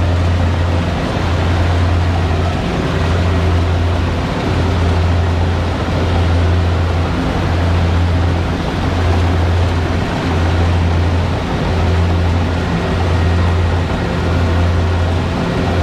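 Kubota DC70 combine harvester's diesel engine and threshing machinery running steadily under load, a loud low drone that eases slightly every second or two.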